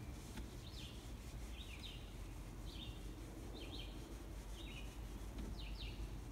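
A bird chirping repeatedly in short calls, about once a second, over the faint rubbing of an eraser wiping a whiteboard and a steady low background rumble.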